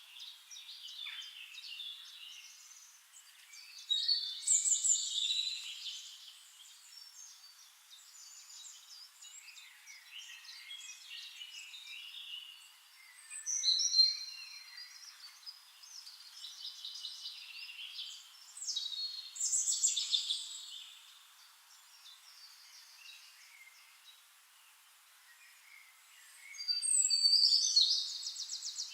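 Several songbirds singing and calling, with louder bursts of song every few seconds and quieter chirping between.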